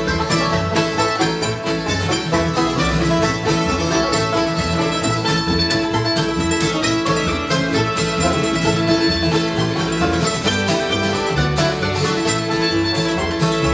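Bluegrass string band playing a fast instrumental live: rolling banjo, fiddle, mandolin, acoustic guitar and upright bass.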